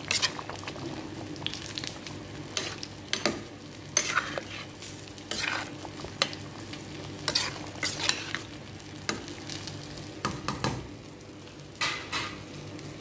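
A slotted metal spatula stirring a pot of chicken curry with carrots and potatoes, scraping and knocking against the stainless steel pot in irregular strokes about every half second to a second.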